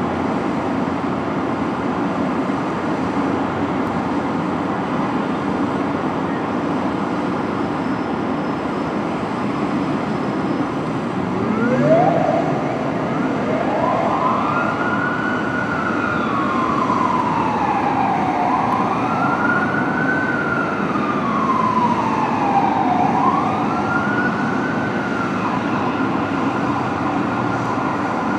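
Steady traffic noise, then about eleven seconds in the siren of a 1999 Freightliner FL50 / Fort Garry heavy rescue truck starts. It winds up and settles into a slow wail, rising and falling about once every three seconds.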